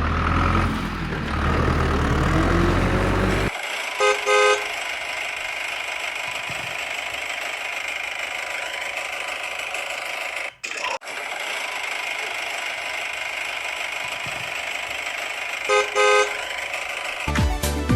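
Vehicle horn tooting twice in quick succession about four seconds in, and again the same way near the end, over a steady traffic-like hiss. A low engine rumble fills the first few seconds, and music comes in at the very end.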